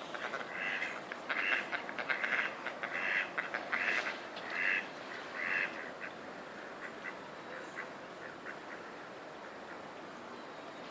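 Ducks quacking: a run of about eight calls in the first six seconds, then they stop, leaving steady background noise.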